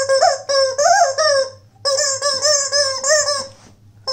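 Pink toy chicken's built-in sound box playing a loud, high-pitched recorded clip as the puppy bites on it, the clip going off twice in a row with a short break between.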